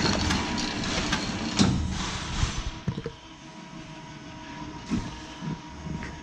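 Horizon BQ-240L single-clamp perfect binder running a padding cycle with its milling unit off. For the first couple of seconds it makes loud mechanical noise with a series of sharp clicks. It then settles to a quieter steady running sound with a faint steady whine and a few scattered knocks.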